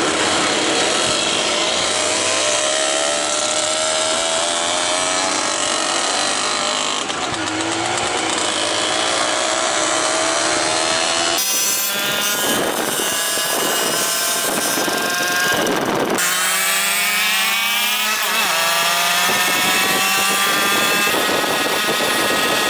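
Moped engines running at speed, their pitch drifting up and down. The sound changes abruptly about halfway through and again a few seconds later, then the pitch climbs steadily as a moped accelerates.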